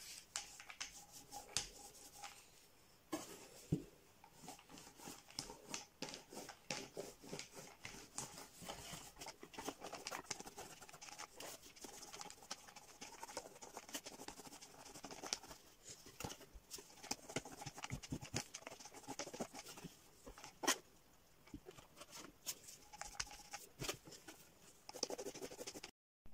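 Small foam paint roller rolling wet yellow paint onto a cardboard birdhouse and being loaded in a plastic tub: a faint, sticky crackle of many small clicks and taps.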